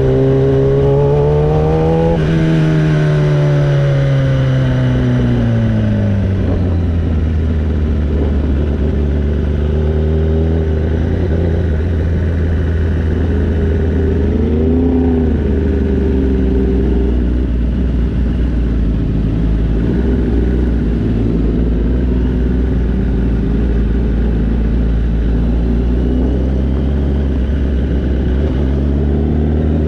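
Superbike engine heard from the rider's seat: the revs rise briefly, then fall away over several seconds as the bike slows, settling into a steady low engine note at walking-pace riding. About halfway there is a short rise and fall in pitch, and the revs pick up again near the end.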